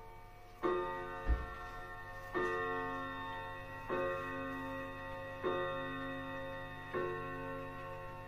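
Restored Coronet longcase clock striking the hour: five slow, evenly spaced ringing strokes of the same note, about one every second and a half, each left to die away. A short low thump comes about a second in.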